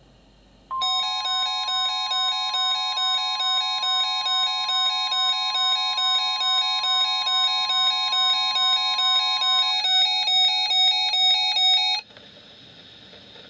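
NOAA Weather Radio receivers going off together for a tornado-drill alert: the broadcast's steady warning alarm tone sounds over the radios' own rapid, repeating alarm beeps. The tone stops a couple of seconds before the beeping, which then cuts off suddenly.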